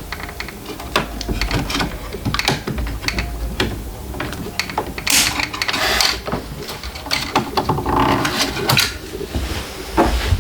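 Hands working inside a 3D printer while removing its packing pieces: a run of small clicks, knocks and rattles of plastic and metal parts, with a louder rustling stretch about five seconds in.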